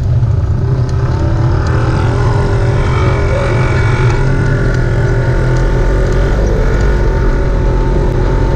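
Off-road vehicle engine running steadily, with a strong low rumble underneath.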